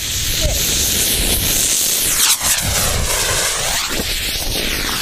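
Homemade rocket motor burning with a loud, steady rushing hiss of exhaust; from about two seconds in the hiss swooshes up and down as the rocket leaves its stand. The exhaust is pouring out through a large hole in the casing, which was not airtight.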